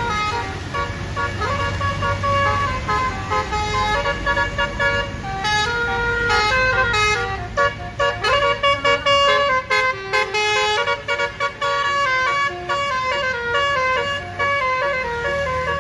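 Bus telolet musical air horn (Basuri type) playing a tune: a run of stepped horn notes, with a fast burst of short staccato toots about halfway through and a low rumble underneath.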